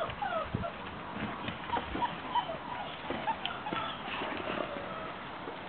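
Six-week-old greyhound puppies' claws clicking and pattering on a tiled floor, with short high squeaks and whimpers here and there.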